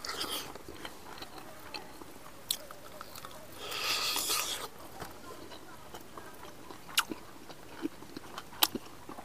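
A man eating with his hands close to a lapel microphone: chewing and biting meat off the bone, with sharp mouth clicks and smacks, and a breathy, hissing mouth noise lasting about a second near the middle.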